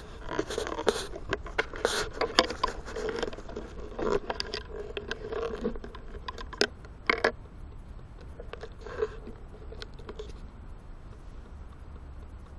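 Handling noise from a hand-held camera being moved and set down: rubbing, scraping and knocks on the microphone, with a sharp double knock about seven seconds in. After that it settles to faint clicks.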